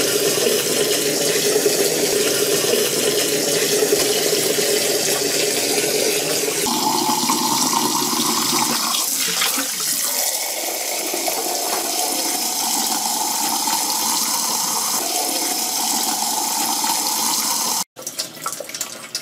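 Water rushing through the clear cartridge housings of an under-sink filter system, then running from a kitchen tap into a drinking glass, the pitch of the filling rising slowly as the glass fills. The flow stops abruptly near the end, leaving a quieter splashing.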